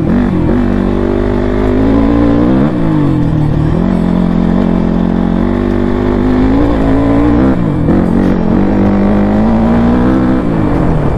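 Dirt bike's engine under way on a gravel track. Its pitch climbs steadily, then drops back, three times over.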